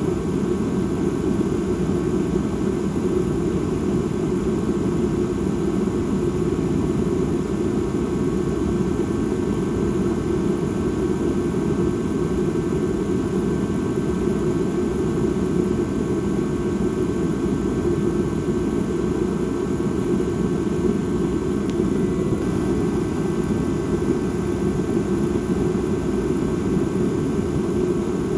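Dark ambient drone: a steady, unbroken low rumble with a few faint, held high tones above it, used as a creepy horror soundscape.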